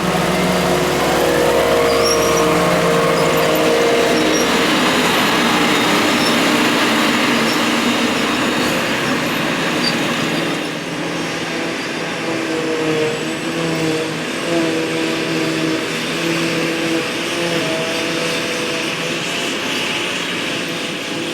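Heavy diesel engines of grass-silage harvesting machinery running under load, a steady drone with a chopping rush over it; the engine note shifts about halfway through.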